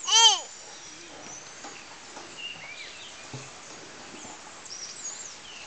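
A young child's short, high-pitched squeal that rises and falls, right at the start. After it comes a quiet outdoor background with a few faint bird chirps.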